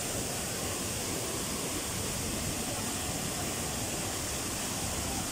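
Water pouring over a stepped river weir: a steady, unbroken rush of falling white water.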